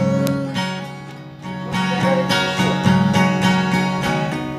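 Music: acoustic guitar strumming chords in a steady rhythm, dipping in loudness about a second in before picking up again.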